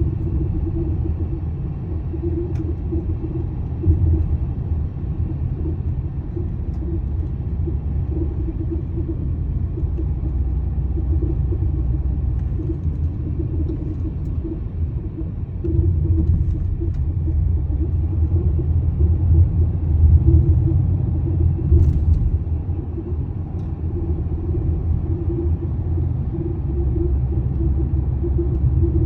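Mercedes-Benz W211 on the move: steady low road rumble with a pulsing hum and a few faint clicks and knocks. The owner hears an abnormal noise from the driver's side and wonders whether worn suspension bushings are the cause.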